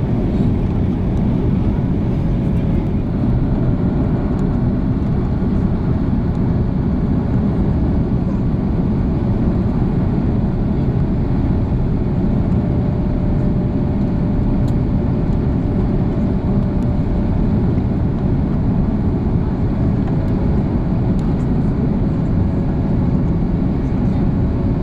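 Steady cabin roar of an Airbus A340-600 airliner in flight: a deep, even rumble of engine and airflow noise, with a faint steady hum running through it in the second half.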